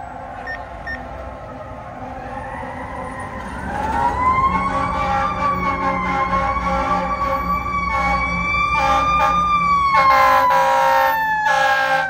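Federal Q2B mechanical siren on an approaching FDNY heavy rescue truck, winding up into a rising wail about a third of the way in, holding its pitch with slight wavers, then starting to wind down near the end. Air horn blasts sound over it near the end.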